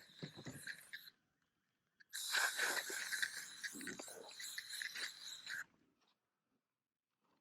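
Rustling and crunching handling noise in two stretches, each cutting off abruptly.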